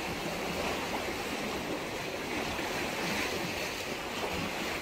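Steady wash of sea water against breakwater rocks, an even hiss without distinct splashes.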